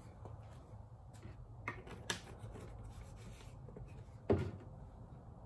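A few scattered knocks and clunks from handling things in a garage, the loudest about four seconds in, over a low steady hum.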